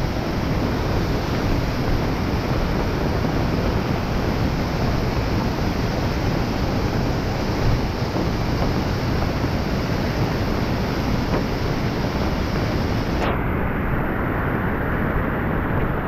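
Steady wind buffeting the camera microphone as a loud, rumbling rush. About three-quarters of the way through it turns abruptly duller, losing its top hiss.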